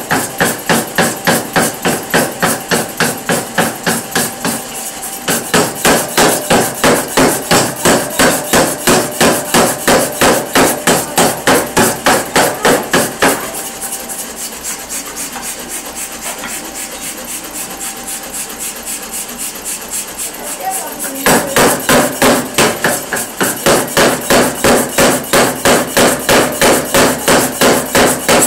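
Power hammer forging a red-hot steel bar, striking in a rapid, evenly spaced series of heavy blows. About halfway through the blows turn lighter and quieter for several seconds, then the heavy blows resume.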